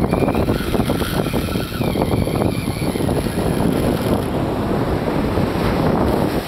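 Loud, steady wind noise buffeting the microphone.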